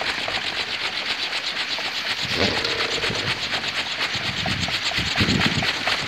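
Kolecer, a Sundanese bamboo wind propeller, spinning fast in the wind, each blade pass giving a rapid, even throbbing beat, the whirring drone that players call its thunder. A few lower rumbles come in about two seconds in and again near the end.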